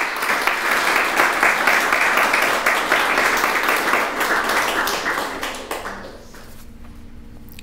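Audience applauding, the clapping dying away about six seconds in.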